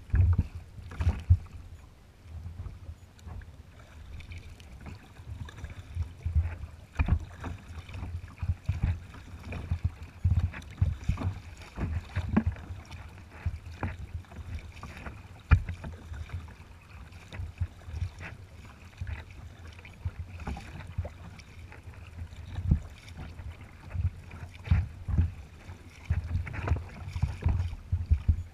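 Choppy water slapping and splashing against the hull of a moving sea kayak in irregular bursts, over a steady low rumble of wind on the microphone.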